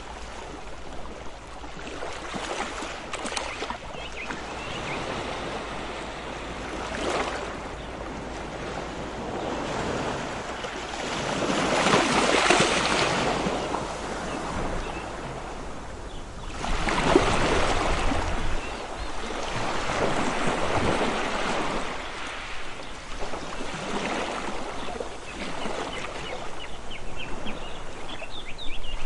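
Ocean waves washing in and breaking, each surge swelling and fading over a few seconds, the largest about twelve and seventeen seconds in.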